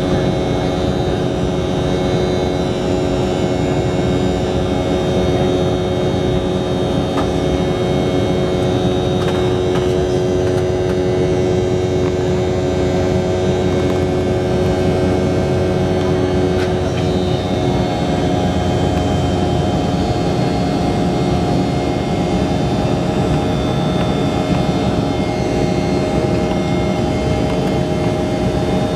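Airliner cabin noise during the climb after takeoff: the engines and airflow make a steady drone with several constant humming tones.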